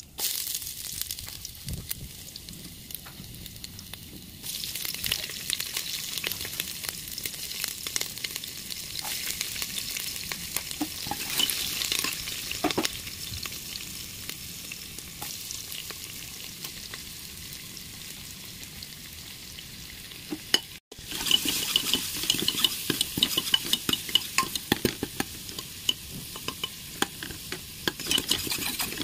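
Cumin seeds sizzling in hot ghee in a kadai. About four seconds in, the sizzle grows louder as chopped garlic and green chillies fry. After a short break a little past twenty seconds, sliced onions fry with a louder crackling sizzle and the clicks of stirring.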